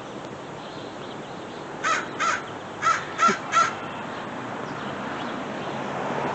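American crow cawing five times in quick succession, harsh calls about a third of a second apart.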